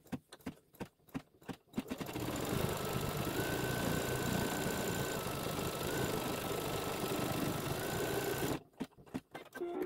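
Embroidery machine stitching the corner detail: a few separate clicks, then about six seconds of steady running with the motor's pitch stepping up and down, stopping abruptly into another run of clicks.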